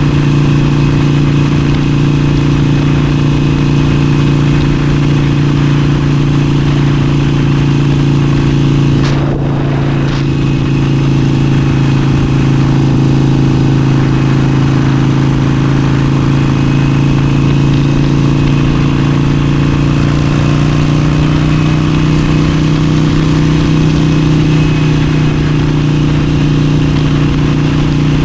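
Harley-Davidson Forty-Eight's air-cooled 1200 cc V-twin running steadily at cruising speed, its exhaust note holding a constant pitch under a steady rush of wind and road noise. The sound dips briefly about nine seconds in, and the engine pitch edges up slightly later on.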